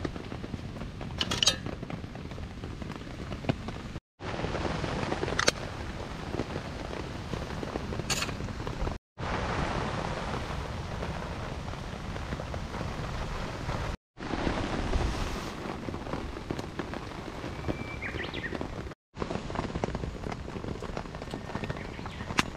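Steady rain pattering on a camping tarp, with a few sharp cracks from split logs burning in a wood fire.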